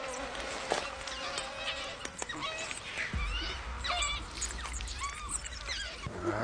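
African wild dogs twittering in many short, high chirps while they feed on a carcass, over wet tearing and chewing of flesh.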